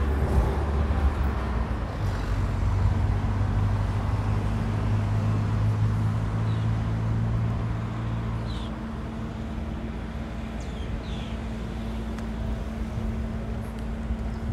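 An engine running steadily with a low hum amid outdoor traffic noise; the deepest part of the hum drops away a little past halfway. A few faint short high chirps come in the middle.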